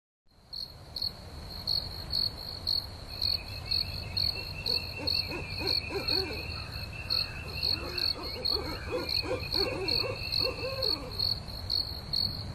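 Crickets chirping in a steady rhythm, about two chirps a second, with a second insect trilling steadily through the middle. Faint short lower calls come and go in the middle stretch.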